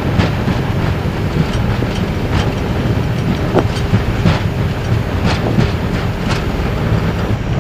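Airbus A320 landing rollout heard from the cockpit: a steady low rumble of the wheels on the runway and the engines in reverse thrust while the aircraft brakes, with irregular thumps about one or two a second as the nose gear rolls along the runway.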